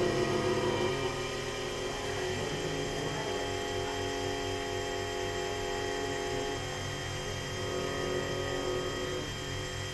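Automatic CNC key cutting machine running as it mills a key blank with a 1.5 mm milling cutter: a steady motor hum with several held tones and a regular low pulsing underneath.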